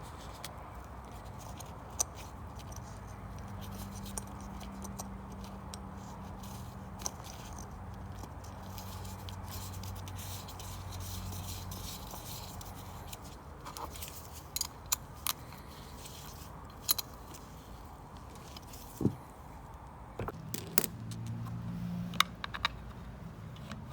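Small metal parts of a Briggs & Stratton lawn mower carburetor clicking and scraping as they are handled and fitted back together: scattered light clicks that come thicker in the second half, over a faint steady low hum.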